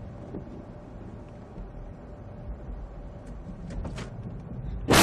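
Steady road and engine noise heard inside a car driving on a snow-covered road, then just before the end a sudden loud crash as something strikes the windshield and cracks it.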